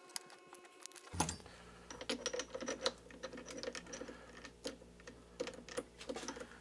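Irregular light clicks and taps of metal on metal as a brass rod is set into a mini lathe's chuck and the chuck jaws are worked by hand.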